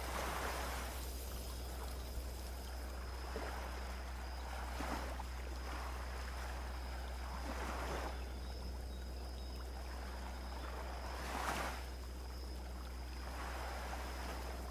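Small sea waves washing onto a beach, a soft surge of surf every few seconds over a steady low rumble, with a thin steady high tone throughout.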